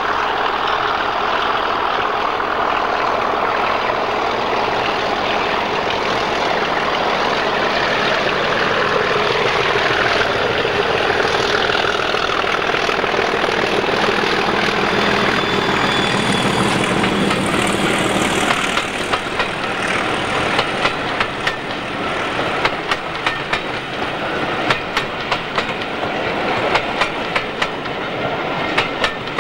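English Electric Class 37 diesel locomotive 37216 with its V12 engine running as it approaches and passes. About two-thirds of the way in, the engine sound gives way to the coaches behind it rolling by, their wheels clicking regularly over the rail joints.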